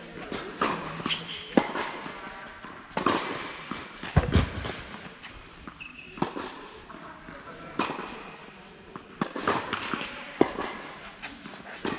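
Tennis balls struck by racquets and bouncing on an indoor court: a string of sharp pops about a second or so apart, the heaviest thud about four seconds in. A few short high squeaks from shoes on the court.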